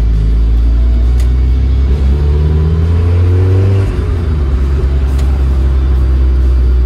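Turbocharged Mazda Miata's four-cylinder engine heard from inside the cabin while driving. It pulls with a rising pitch for a couple of seconds, then drops back about four seconds in.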